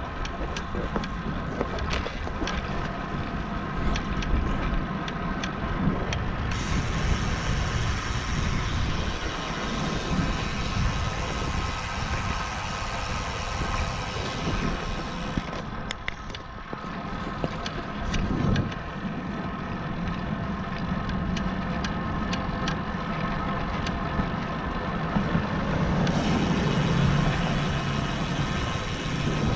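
Steady rush of riding a road bike on a street: wind and tyre noise.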